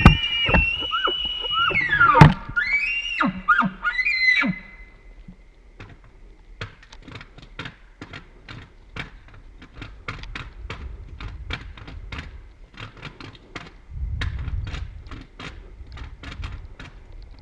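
Elk bugle: a high whistling note held about two seconds before breaking off with a low grunt, then shorter falling whistles. After that comes a long run of quieter sharp clicks, two or three a second.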